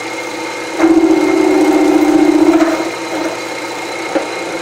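Milling machine running with an end mill cutting steel, a steady hum with a faint constant whine. About a second in the cut bites harder for about two seconds, a loud fast-pulsing buzz, then drops back to the machine running lightly as the counterbore for an Allen head screw is brought just below flush.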